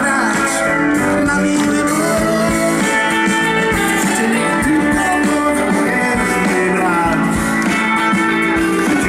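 Live band playing loud: electric guitars over a steady beat.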